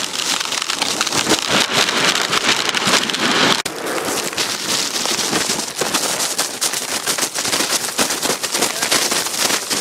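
Blizzard wind gusting at near-hurricane strength, buffeting the microphone into a loud, continuous crackling rush, with wind-driven snow pelting.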